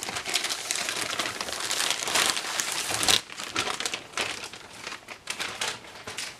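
Clear plastic packaging bags crinkling as they are handled: a dense crackly rustle through the first three seconds, then lighter scattered crinkles.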